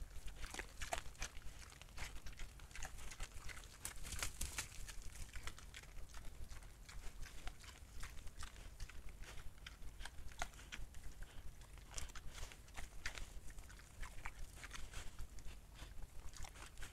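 Wild boars feeding with their snouts to the ground: irregular crunching and chewing, with rustling of leaf litter and shuffling steps, as a steady patter of small clicks.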